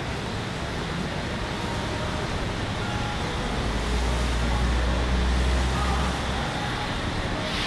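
City street traffic: steady road noise, with a vehicle passing about halfway through that adds a deep low rumble for about three seconds.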